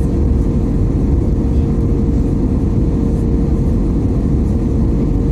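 Airbus A321neo in flight, heard inside the cabin at a window seat: a steady deep rumble of engine and airflow with a steady mid-pitched hum over it.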